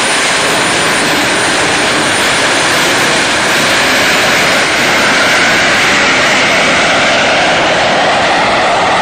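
Jet engine of a go-kart running loud and steady, its rushing noise swelling slightly in the middle with a slowly drifting pitch.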